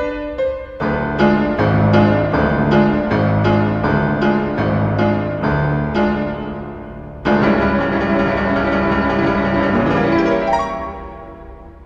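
Piano music: brisk repeated chords, then a loud held chord about seven seconds in that slowly dies away.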